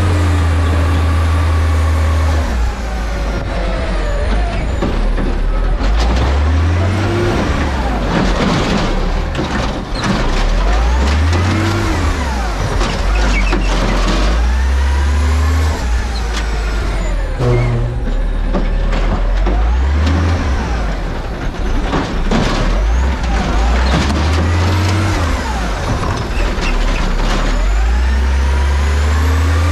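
Autocar garbage truck's engine running loud and close, revving up and easing off again and again as the truck pulls away and slows in stop-and-go driving, with short air-brake hisses between.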